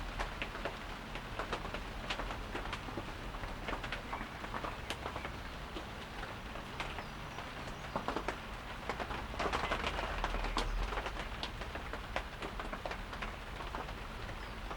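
Light rain falling, with many scattered drops ticking sharply against nearby surfaces over a steady hiss; it swells a little about ten seconds in.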